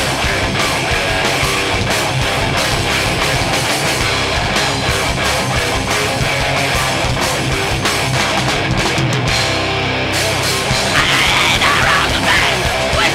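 Heavy metal band playing live: distorted electric guitars, bass and a drum kit. A singer's shouted vocals come in near the end.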